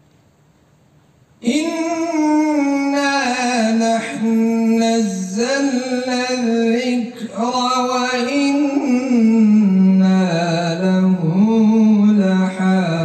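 Quran recitation in the melodic tajwid style: one reciter's voice drawing out long, wavering notes. It comes in suddenly about a second and a half in, after near silence.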